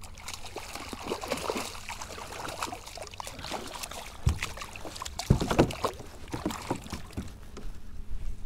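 Hooked speckled trout splashing at the surface beside a kayak, with irregular knocks and a few heavier thumps against the hull as it is reached for and lifted aboard.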